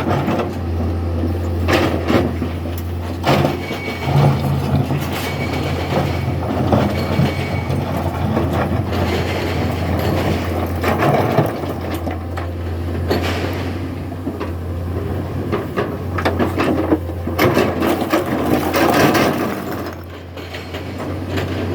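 Excavator at work: its engine runs with a steady low drone, broken by repeated irregular metallic clanks and knocks.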